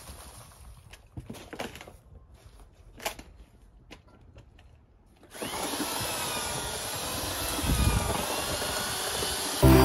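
A few scattered light knocks, then about five seconds in a handheld power tool starts up and runs steadily, its whine wavering slightly in pitch.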